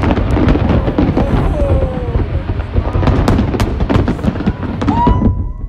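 Aerial fireworks in a dense barrage: many sharp cracks and bangs in quick succession over a constant low booming rumble. It cuts off abruptly about five seconds in.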